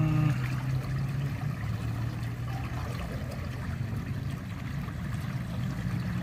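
Water trickling in an irrigation canal, over a low steady hum.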